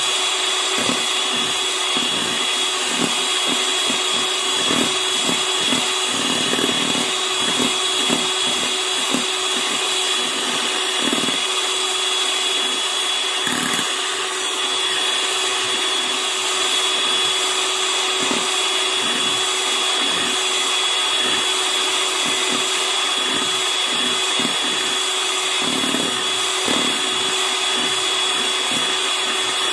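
Electric hand mixer running at a steady speed, its twin beaters whipping instant coffee, sugar and hot water into dalgona foam: a continuous motor whine with a steady high tone.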